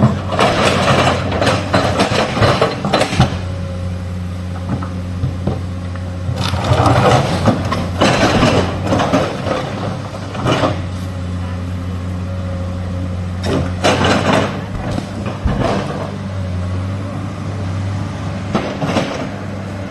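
Excavator's diesel engine running steadily, with several louder bursts of noise a few seconds apart as it works.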